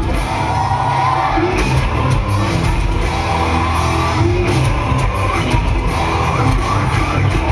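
Rock band playing live through a concert hall's PA, with singing and the audience yelling and cheering along.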